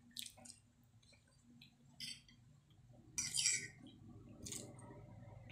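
Eating sounds: a metal spoon and fork scraping and clinking on a plate a few times, the longest and loudest scrape about three seconds in, with quiet chewing.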